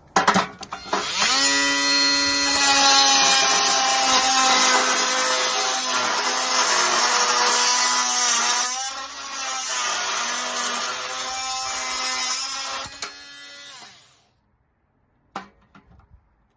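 Oscillating multi-tool fitted with a Pitbull cutting blade, running and cutting with a steady high buzzing whine that dips briefly in the middle, then winding down and stopping near the end. A couple of short knocks follow.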